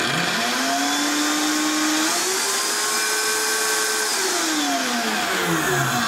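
Countertop blender motor running empty, starting abruptly with a whine that climbs in pitch as it speeds up, steps higher about two seconds in, then slides down again over the last couple of seconds as it slows.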